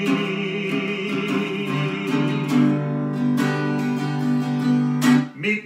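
Fender acoustic guitar strummed in steady chords. A man's held sung note with a slight waver rings over it and ends about two seconds in, leaving the guitar alone until a sung word starts at the very end.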